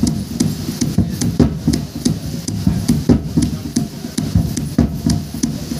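Traditional drum accompanying a Rongmei folk dance, beaten in a steady, fast dance rhythm, with sharp high ticks about twice a second.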